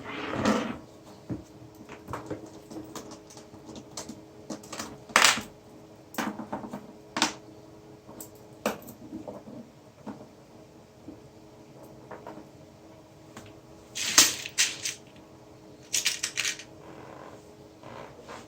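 Irregular metallic clinks, clicks and knocks of small metal parts and tools being handled, with a few louder clacks and short clusters of rattling, over a faint steady hum.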